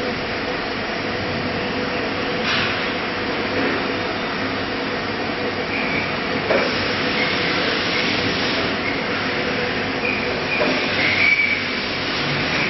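Steady mechanical running noise from a CNC router machine, with short sharp sounds about two and a half and six and a half seconds in.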